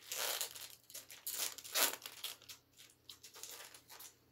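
Foil wrapper of a Topps baseball card pack being torn open and crinkled in the hands. It comes as several rustling bursts, loudest a little under two seconds in, then trails off into softer handling.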